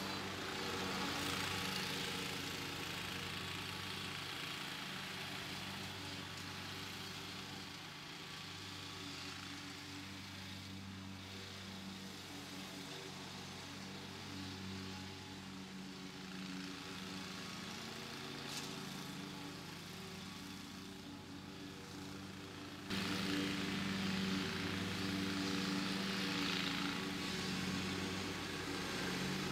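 Riding lawn mower engine running steadily under mowing load, a constant hum with a hiss over it. It gets abruptly louder about three-quarters of the way through as the mower is nearer.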